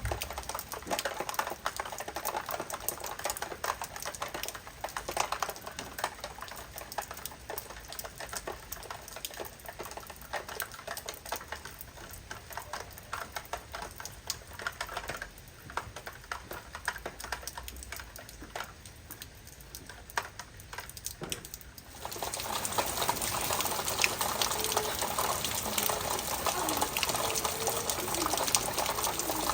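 Heavy rain: a dense patter of drops striking a hard surface, which about three-quarters of the way through turns suddenly louder into a steady rushing downpour.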